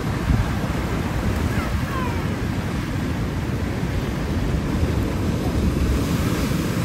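Ocean surf breaking over a rocky reef and washing across shallow rock shelves, a steady rush of water. Wind buffets the microphone underneath it.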